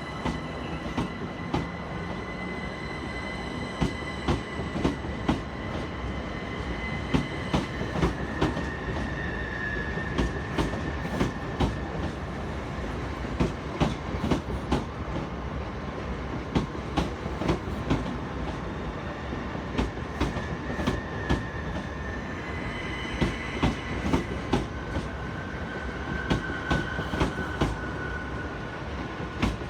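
Electric multiple-unit train moving slowly over pointwork, with a steady rumble and many irregular sharp clicks as its wheels cross rail joints and points. Over this runs a high-pitched squeal that dips slightly in pitch twice: once about ten seconds in and again in the last third.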